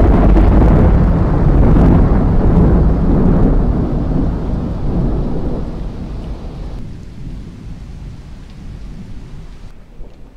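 A long, loud thunder rumble, already at full strength at the start, that slowly fades away over the next six or seven seconds, with rain hissing underneath.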